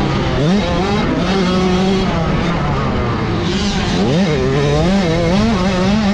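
Dirt bike engine heard from on the bike while riding a motocross track, its pitch climbing sharply and falling back several times as the throttle is opened and rolled off, with a rushing noise underneath.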